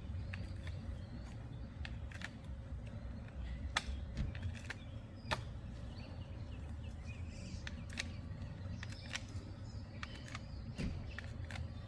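Scattered sharp clicks and knocks of Springfree trampoline mat rods being handled and seated, over a steady low rumble.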